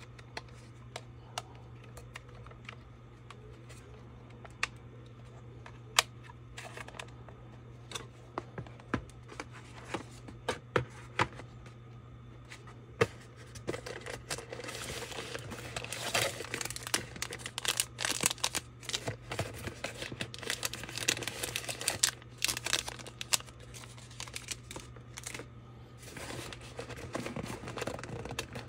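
Scattered plastic clicks and taps from handling a DJI remote controller and its spring-loaded phone clamp. From about halfway in, packaging wrapping crinkles and rustles steadily as parts are pulled out of the box, over a steady low hum.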